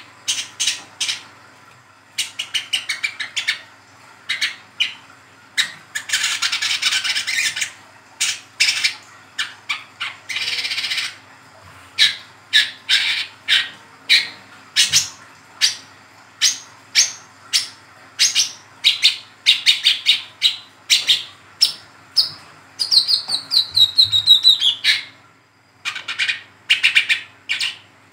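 Young speckled brown-throated sunbird (kolibri kelapa trotolan) calling in a rapid, chattering twitter ('ngeriwik') of short high chirps. There are a couple of buzzy trills, and near the end a quick run of notes falls in pitch.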